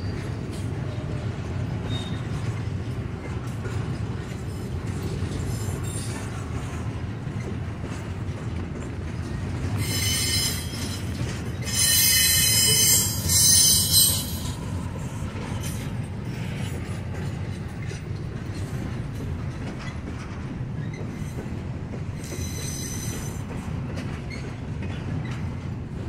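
Double-stack intermodal well cars rolling past with a steady low rumble. Wheels squeal in high-pitched bursts a little before the middle, loudest just past the middle, with a fainter squeal near the end.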